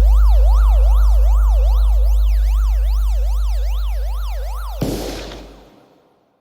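Electronic bass-test sound: a very loud, deep sub-bass drone under a siren-like tone that swings up and down in pitch about three times a second. The siren tone cuts off abruptly about five seconds in, and the bass dies away a moment later.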